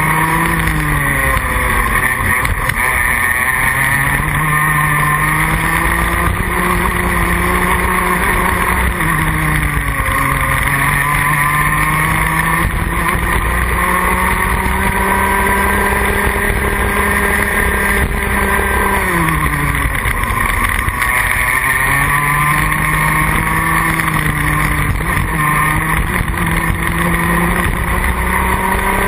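Rotax Max Junior kart's 125cc single-cylinder two-stroke engine heard from onboard at racing pace. Its revs climb steadily along each straight, then drop sharply as it slows for a corner, about every nine seconds: just after the start, near ten seconds, around nineteen seconds and again near the end.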